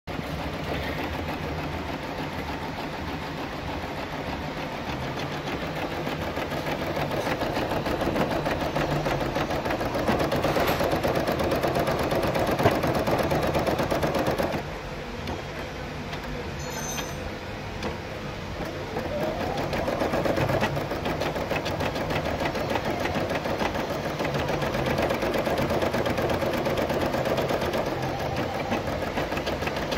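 Brother Innov-is 700E embroidery machine stitching lettering: a steady run of rapid needle strokes. About halfway through it drops quieter for a few seconds, then picks back up with a rising whine.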